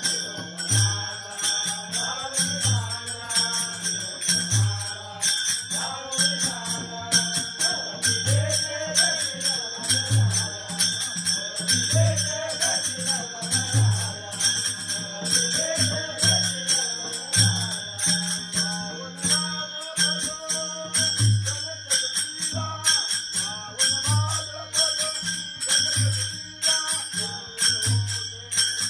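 Devotional bhajan: a group of men singing together to a two-headed barrel drum, with small hand cymbals clashing in a quick, steady rhythm and a deep drum stroke about every two seconds.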